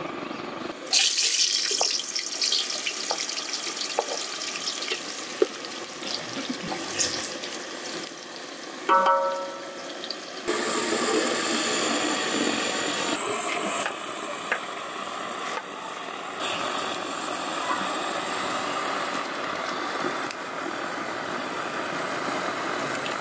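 Chicken pieces frying in hot oil in a large aluminium pot. A sudden loud sizzle comes about a second in, followed by steady sizzling and hissing as the pot is stirred and steam rises.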